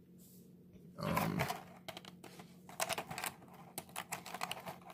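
Quick, irregular light clicks and taps of small plastic parts and packaging being handled, after a short rustle about a second in.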